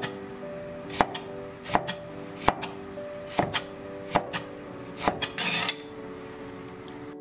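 Chinese cleaver chopping a peeled tomato into chunks on a wooden chopping board: about ten sharp knocks of the blade on the board, roughly one every three-quarters of a second, some in quick pairs. Near the end comes a brief scrape as the pieces are scooped up on the blade.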